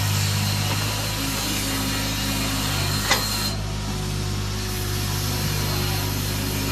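Mini excavator's diesel engine running steadily under load as the hydraulics work the boom and bucket digging into soil and broken brick. A single sharp knock about three seconds in.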